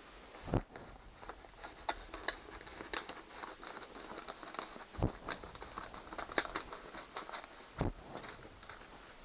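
Adhesive wood-grain vinyl film crinkling as it is handled and scissors snipping through it along the table edge, with three dull thumps.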